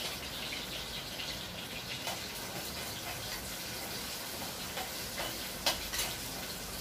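Green chillies (with cumin seeds just added) sizzling in hot oil in a kadai, a steady hiss, while a spatula stirs them, knocking sharply against the pan a couple of times near the end.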